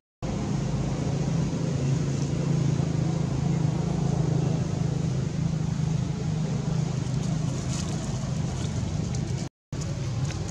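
A steady low mechanical hum, like an engine running, over outdoor background noise. The sound cuts out briefly at the start and again near the end.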